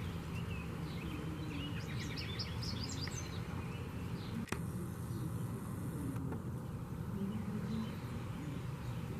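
Birds chirping in short high bursts, busiest a couple of seconds in, over a steady low rumble; a single sharp click about halfway through.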